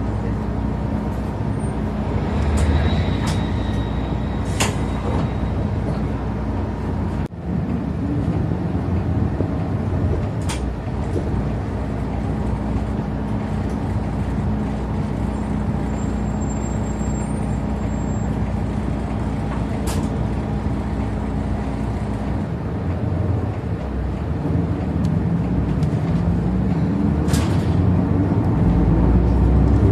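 Toei city bus heard from inside the cabin: the engine runs steadily under road noise, and its note changes and climbs over the last several seconds as the bus speeds up. A few short clicks and rattles are heard along the way.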